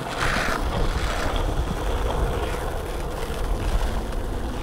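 Skateboard wheels rolling over rough asphalt: a steady, low rumble.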